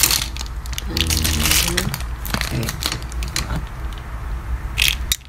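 Box packaging and its foam insert being handled, crunching and crackling with many irregular clicks.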